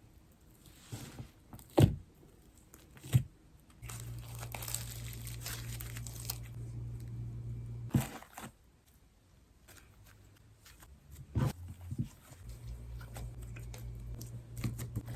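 Sugar slime being worked by hand, crinkling and crackling, with a few sharp pops and two longer spells of steady crackly kneading.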